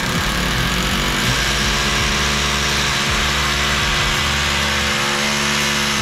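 Handheld electric drill boring a hole into the wall to fix a TV wall mount. The motor gives a steady whine over the hiss of the bit cutting, starting abruptly.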